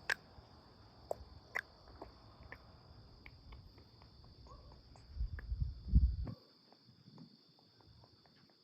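Crickets chirping in a steady high chorus, with scattered sharp pops of distant fireworks. About five to six seconds in, a loud low rumble swells and then cuts off.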